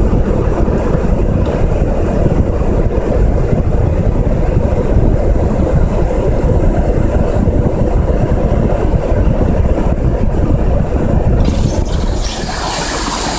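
Loud, steady low rumble of muddy flash-flood water rushing across the road around a stopped vehicle, with wind buffeting the microphone. About twelve seconds in, the low rumble drops away and a brighter hiss of the rushing flood water takes over.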